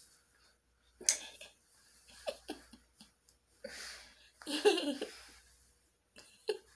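Soft, breathy laughter and short vocal sounds in a few brief bursts, the longest and loudest about four and a half seconds in.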